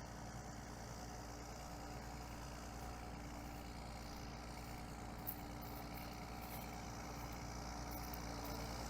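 Tractor engine running steadily at low revs, with a brief click about halfway through.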